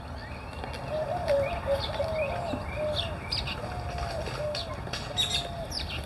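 Dove cooing in low, wavering notes repeated about once a second, with short higher chirps from other birds mixed in.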